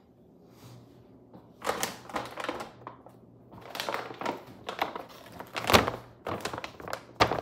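A large plastic bag of whey protein powder crinkling and rustling as it is handled, with a thump as it is set down on a wooden table.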